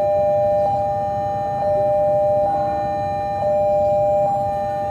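Railway level-crossing warning alarm sounding: a steady electronic two-tone wail whose strength alternates about once a second.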